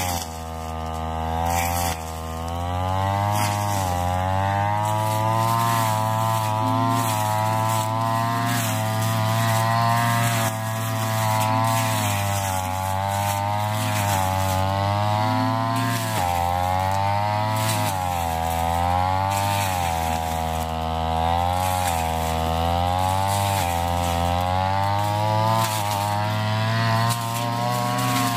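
Ryu backpack brush cutter's small engine running hard, its pitch dipping and rising again every few seconds as the cutting head bites into thick tall grass and frees up.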